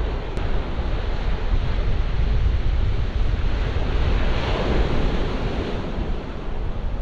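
Sea surf breaking and washing up a shingle beach, with wind buffeting the microphone in a low rumble. A wave breaks and hisses more loudly about four to five seconds in.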